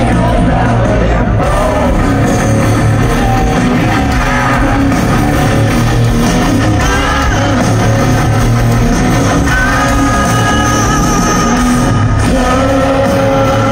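Heavy rock band playing live and loud through a concert PA: distorted electric guitars and drums, with sung vocals.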